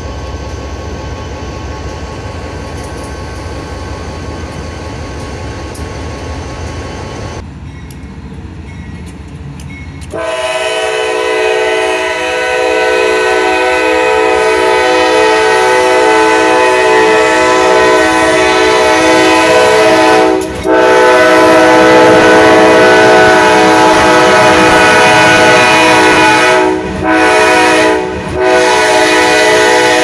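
Diesel freight locomotives rumbling past, then from about ten seconds in the loud multi-note air horn of Kansas City Southern de México AC4400CW 4505 sounding in long blasts, broken by three brief gaps in the second half.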